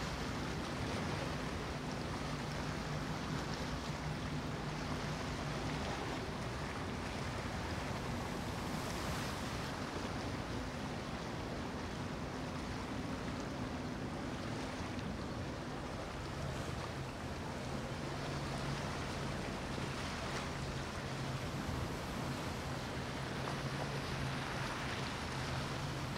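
Motor yacht engines droning low and steady over the rush of their wakes and wind on the microphone. A lower engine hum takes over about two-thirds of the way through.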